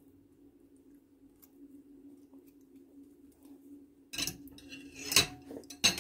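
A faint steady hum for about four seconds, then a kitchen utensil knocking and scraping against dishes, with a sharp clink a little after five seconds and another near the end, as chopped herbs are added to a bowl of melon.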